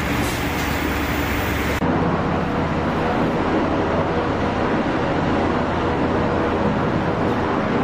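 Steady machinery roar on board a ship, with no voices. About two seconds in the sound changes abruptly to a duller roar.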